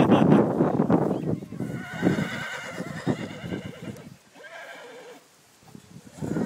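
A horse whinnying: a long wavering call, then a second shorter one a couple of seconds later. Wind buffets the microphone at the start.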